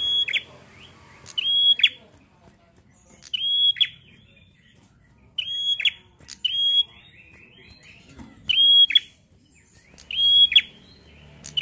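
Caged ashy tailorbird, kept as a 'prenjak' songbird, calling about seven times: each call a loud, high held note that drops sharply at the end, with softer buzzy chatter in between.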